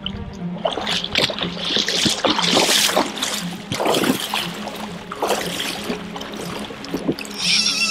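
Legs in chest waders sloshing and splashing through knee-deep river current, step after step, as an angler wades across.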